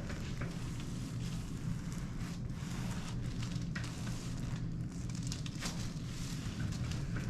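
Irregular rustling and crackling from handling on the chiropractic table, over a steady low hum.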